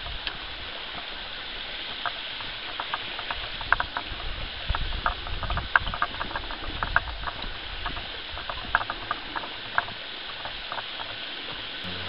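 Footsteps on a dirt bush track: irregular short crunches, several a second, over a steady hiss, with a few low bumps from the walking camera.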